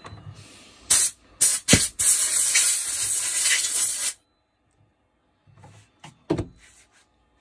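Aerosol spray can: three short puffs about a second in, then a continuous spray of about two seconds that cuts off sharply. A single knock near the end.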